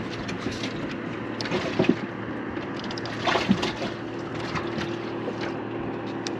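Bass boat sitting on open lake water: a steady low hum with wind and water noise, and a few light knocks on the deck about a second and a half in and again past the three-second mark.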